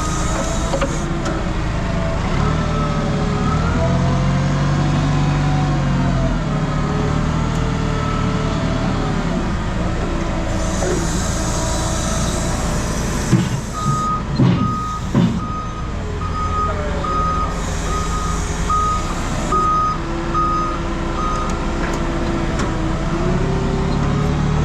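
Heavy diesel equipment running, its engine note rising and falling as it works. Its reversing alarm beeps in a steady series through much of the second half. Two bursts of hiss and a few knocks come in between.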